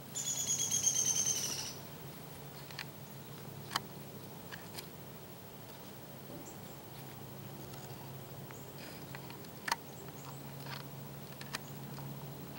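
Camcorder zoom motor whining for under two seconds at the start, a high buzzing tone that dips slightly as it stops. Then a few faint scattered ticks and rustles.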